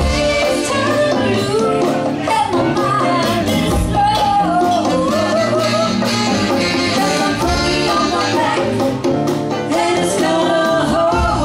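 Live funk band playing, with female lead vocals over electric guitar, electric bass and drums.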